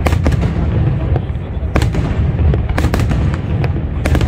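Aerial fireworks going off: repeated sharp bangs over a continuous low rumble of further bursts.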